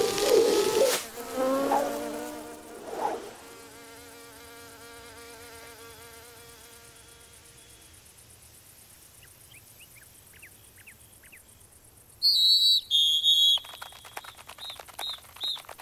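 Cartoon insect wing buzz, a stylised ladybug flight sound that warbles and then fades away over several seconds. Short high chirps follow, with a loud burst of high chirping about twelve seconds in and fast ticking near the end.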